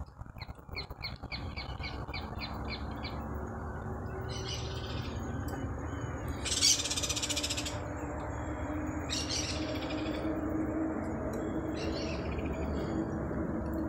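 Wild birds calling at a lagoon: a quick run of about nine chirps near the start, then short harsh calls every couple of seconds, the loudest about halfway through. Underneath is a steady low background rumble.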